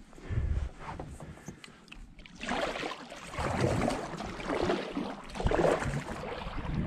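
Kayak paddle strokes, the blade dipping and splashing in the water, about one stroke a second, quieter for the first couple of seconds.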